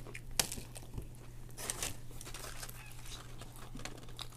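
Close-up eating sounds: chewing and mouth smacking on a Subway Philly cheesesteak sandwich, with scattered short crunches and crinkles.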